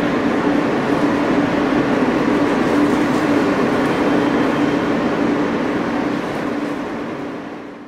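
Steady hum and rush inside a New York City subway car standing at a station, with a low steady tone running through it. It fades out over the last couple of seconds.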